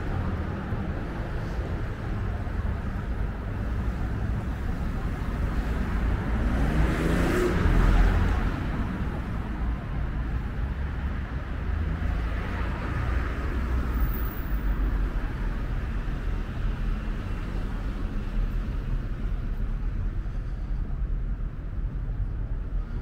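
City street traffic: a steady low rumble of cars, with one vehicle passing close about eight seconds in, its engine note rising as it goes by.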